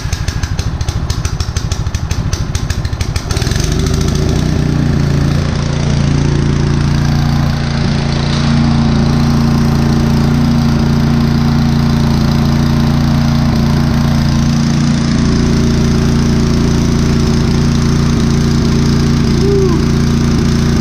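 Craftsman snow blower's single-cylinder four-stroke engine running on a newly installed carburetor. For about the first three seconds it runs choppy and pulsing, then it settles into a steady, even run at constant speed.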